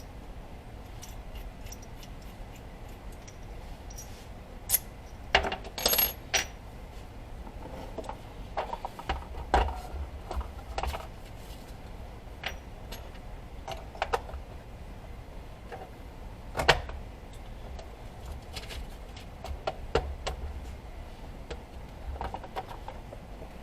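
Small metal parts and tools clinking and tapping at irregular intervals, with a few sharper metallic clicks that ring briefly, as pieces of a Heli-coil thread-repair kit are handled.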